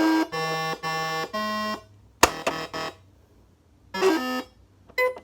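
Simon Classic electronic memory game sounding its buzzy beep tones: a sequence of notes about half a second each, then a sharp click and a quicker run of short notes. Near the end it gives a string of short repeated beeps at one pitch, about three a second.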